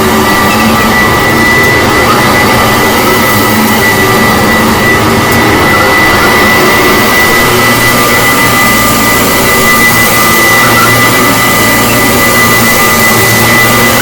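1975 Kirby Classic Omega upright vacuum cleaner running steadily, with a constant high-pitched whine over its motor and fan noise. A low hum under it swells and fades a few times as the cleaner is worked.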